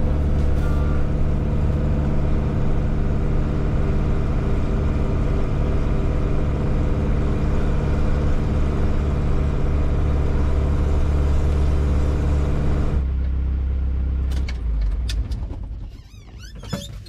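Iveco Daily van's diesel engine pulling steadily under load up a steep climb, loud through a broken exhaust. About thirteen seconds in the engine sound drops away sharply.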